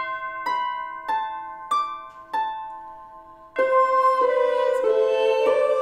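Medieval harp playing a slow line of five single plucked notes, each ringing and fading, about half a second apart. About three and a half seconds in, a fuller band of instruments joins with held, sustained notes.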